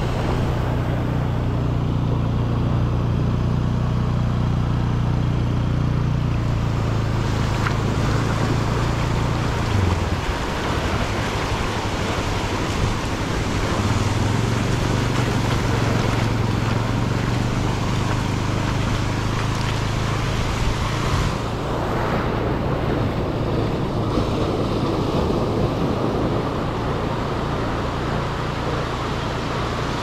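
Ocean surf washing up and draining back over the sand in a steady hiss, with a steady low rumble underneath that drops away briefly about ten seconds in.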